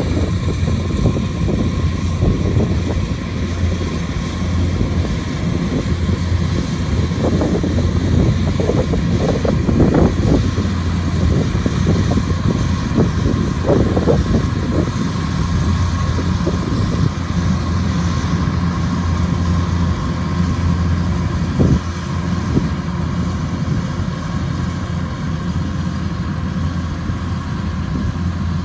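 Kubota DC-105X combine harvester running steadily while harvesting rice: a constant diesel engine hum with irregular rattles and knocks from the machinery, thickest in the middle and once more near the end.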